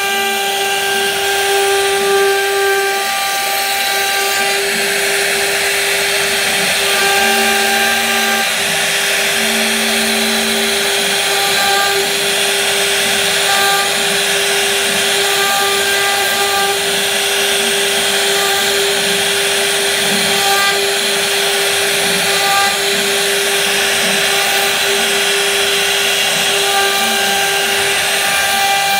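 CNC router spindle running at a steady, high whine while its bit carves into wood, with a continuous rough hiss of cutting. Higher tones rise out of the noise now and then as the bit's load changes.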